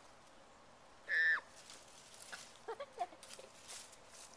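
A puppy gives one short, high yelp about a second in, dropping in pitch at the end, then a couple of fainter yips. Dry leaves rustle and crackle as the puppies play-fight.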